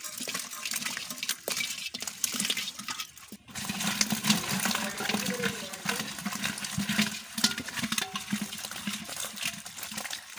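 Small live fish in a little water spilling out of a metal pot: wet splashing and slapping with many small clicks as the fish slide and flop against the metal and each other. A brief lull about three seconds in, then denser slapping.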